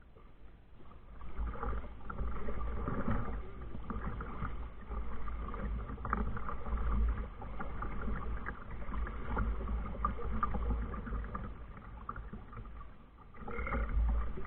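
Kayak moving on the water: uneven sloshing and splashing around the hull over a steady low rumble.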